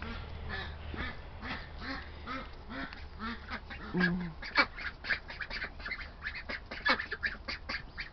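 Ducks quacking, a quick run of short calls repeated over and over that grow busier in the second half, over a steady low hum.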